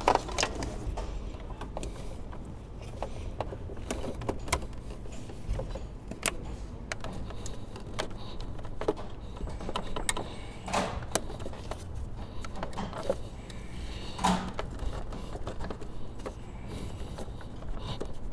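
Scattered clicks, knocks and rubbing as a plastic transmission cooler line and its rubber hoses are handled and worked onto their fitting at the cooler, with a few louder knocks about eleven and fourteen seconds in. A low steady hum runs underneath.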